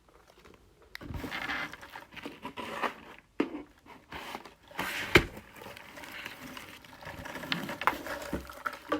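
Packaging being handled: irregular rustling and crinkling, with a sharp knock about five seconds in.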